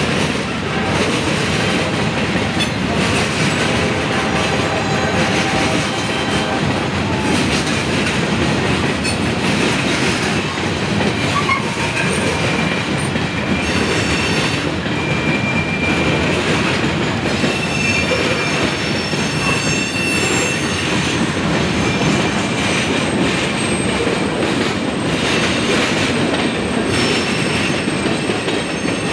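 Freight train of covered hopper cars rolling past. The cars make a steady rumble with wheels clacking over the rails, and the wheels squeal in high thin tones that come and go, mostly in the middle stretch.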